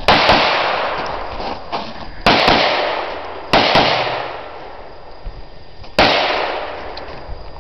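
Handgun shots fired in quick pairs: two at the start, two a little over two seconds in, two about three and a half seconds in, and a single shot about six seconds in, each followed by a long fading echo.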